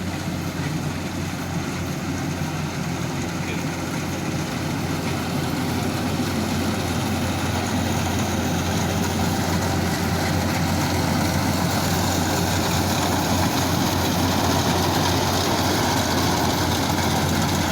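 Rice combine harvester's engine running steadily with a deep drone, growing gradually louder.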